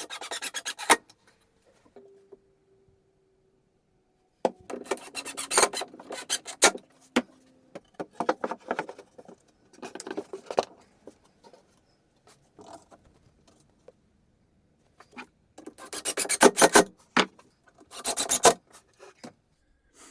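Several bursts of rasping on plywood, each about half a second to two seconds long, with quiet gaps between.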